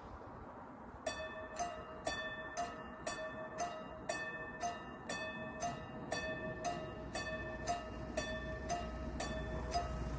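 Level crossing warning bell starts ringing about a second in, striking steadily about twice a second to warn of an approaching train. A low rumble builds underneath near the end.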